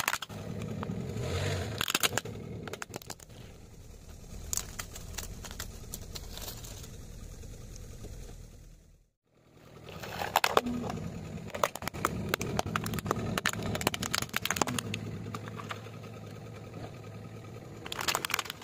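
A car tyre rolling slowly over plastic toy vehicles on asphalt, the hard plastic cracking and snapping in clusters of sharp cracks, with the car's engine running underneath. The sound cuts out briefly about nine seconds in, then a second toy is crushed.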